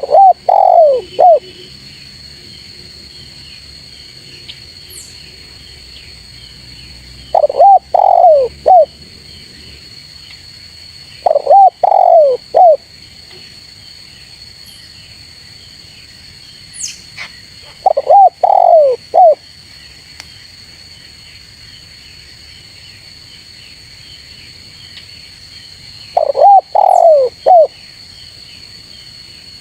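Spotted dove cooing: five phrases of three or four quick coos each, several seconds apart. A steady high-pitched hum runs in the background.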